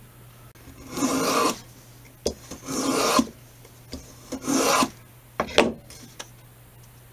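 Small hand plane taking three strokes along a thin mahogany strip held in a wooden jig, thinning a patch piece. Each stroke lasts about half a second, with a few light knocks between the strokes.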